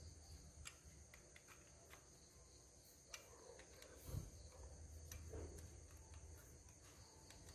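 Near silence with faint metal clicks and ticks of a spanner on the valve-clearance adjuster lock nut of a small motorbike engine's cylinder head, and a soft thump about four seconds in, over a steady high-pitched background drone.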